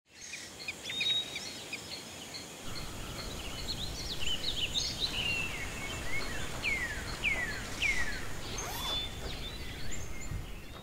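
Birds chirping and calling, with a run of short chirps and three falling whistled calls a little over halfway through, over a low steady background noise that comes up about three seconds in.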